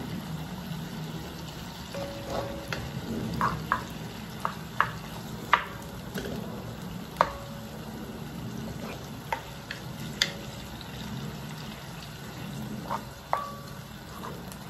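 Tomatoes and onions sizzling in a wok while a cooking spoon stirs them, knocking and scraping against the pan in irregular sharp taps, some leaving a brief ring from the wok. A steady low hum runs underneath.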